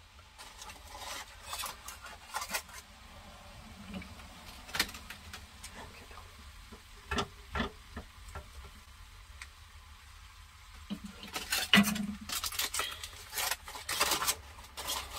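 Aluminium foil crinkling as it is peeled back and folded over a pan, with a utensil clicking and scraping against the pan in between. The crinkling is busiest near the end.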